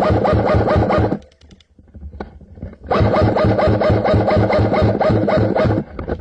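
Electric airsoft M4 rifle firing full-auto, its gearbox and motor cycling in a rapid rattle heard close up from a gun-mounted camera. One burst stops about a second in, and a second long burst runs from about three seconds in to near the end.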